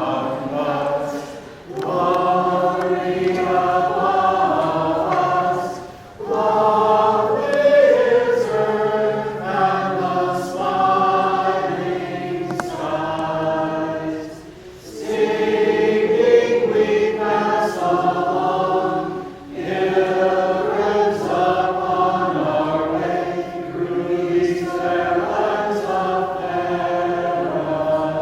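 A small group of singers singing a song together, phrase by phrase, with short breaks between the phrases.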